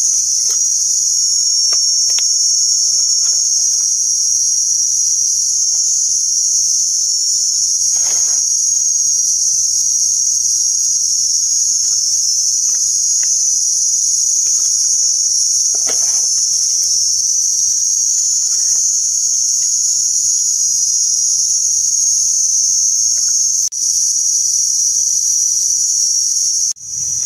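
Steady, high-pitched drone of a forest insect chorus, unbroken throughout, with a couple of faint rustles of leaf litter being handled.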